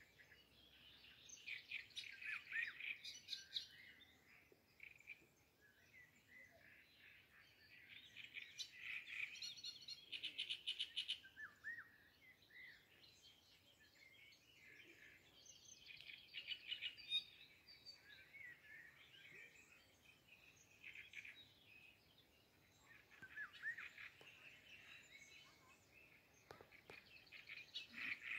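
Small songbirds singing, with phrases of quick high chirps coming in bouts every few seconds and quieter gaps between.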